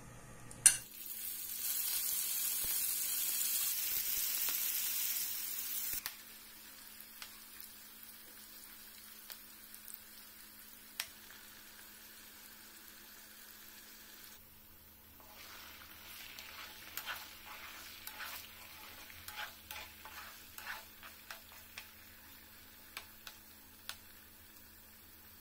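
Marinated mutton pieces going into hot oil in a non-stick pan: a sharp knock about half a second in, then a loud sizzle for a few seconds that settles to a quieter steady frying hiss. In the second half, scattered crackling and popping as the meat fries.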